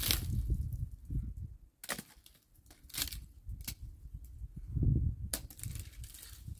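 Dry branches and twigs cracking and snapping, five sharp cracks spread over a few seconds, over an uneven low rumble.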